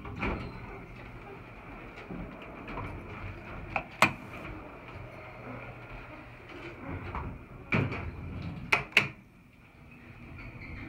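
Kone elevator's sliding car doors opening and closing, with sharp clacks from the door mechanism: a loud one about four seconds in and three more close together around eight to nine seconds in. Under them runs a steady faint whine.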